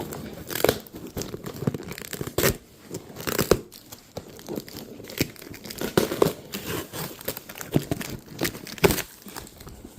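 A cardboard box and its paper packing being torn open and crinkled, with irregular sharp rips and crackles throughout.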